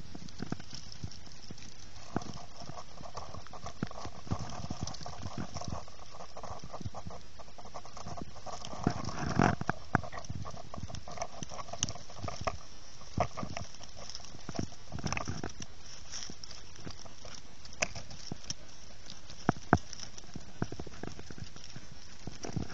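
Young hedgehog moving and foraging through dry grass and leaves: irregular rustles and sharp little clicks over a steady background hiss.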